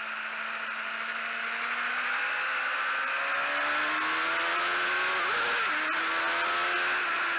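Honda CBR1000RR inline-four engine heard onboard under steady wind rush, accelerating out of a corner with its pitch climbing slowly. About five seconds in the pitch briefly jumps up and settles back.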